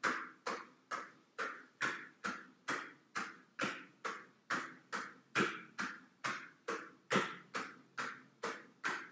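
Steady percussion beat, about two strikes a second, each ringing briefly before the next.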